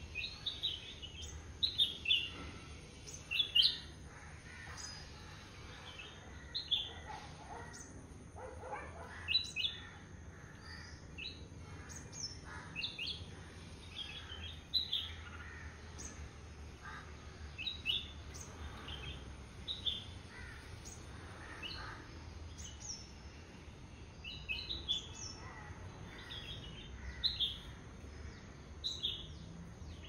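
Bulbuls chirping in short, high calls that come every second or so, often in quick clusters, with a lower, falling call about eight seconds in. A faint steady low hum runs underneath.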